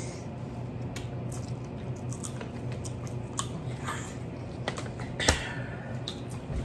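Scattered small clicks and cracks of people eating a seafood boil: crab and shellfish shells being cracked and picked apart, with lip smacking. One louder crack comes about five seconds in.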